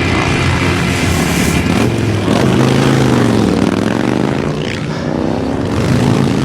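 Motor vehicle engines running and passing, their pitch dipping and then rising again in the middle.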